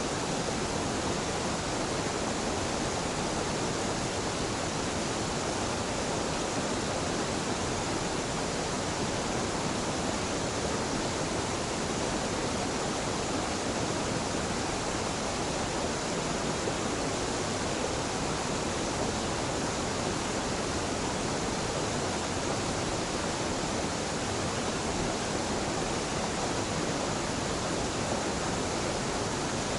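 Small waterfall pouring steadily into a mountain stream, a constant even rushing of water.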